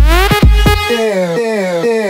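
Electronic dance music: a steady kick-drum beat with rising synth lines, breaking off about halfway in as the drums and bass drop out and the synth slides downward in pitch.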